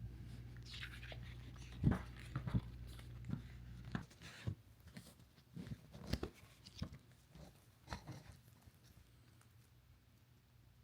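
Hands handling an oracle card deck's box and packaging: a brief brushing, sliding noise followed by a series of irregular soft knocks and taps.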